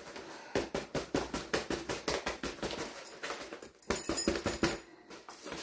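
Large paper flour bag crackling and rustling as it is shaken upside down into a plastic bucket to empty out the last of the flour. The crackling comes in a quick, irregular run and thins out near the end.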